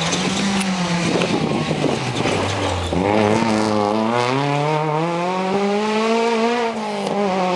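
Rally car engine passing close on a gravel stage. The revs drop about two seconds in as it slows for the corner, then climb steadily as it accelerates out sideways, with gravel spraying from the tyres.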